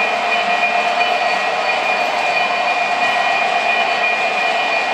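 O-gauge model freight trains running on three-rail track: a steady rolling rumble of wheels with a steady high hum over it.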